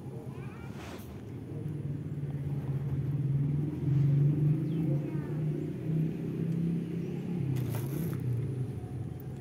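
Low droning engine of a passing motor, swelling over the first four seconds and easing off toward the end. Two brief clicks come about a second in and near the end.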